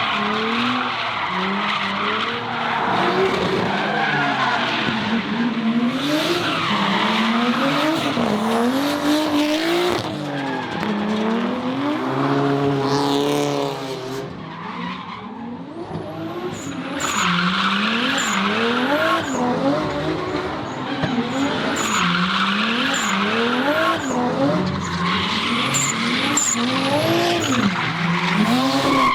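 Drift car sliding sideways, its engine revving up and down over and over as the throttle is worked, with tyres screeching. The engine falls off briefly about halfway through, then picks up again with short, sharp high chirps among the revs.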